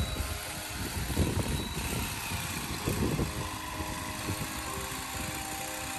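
A small engine running steadily, with background music notes coming in about halfway through.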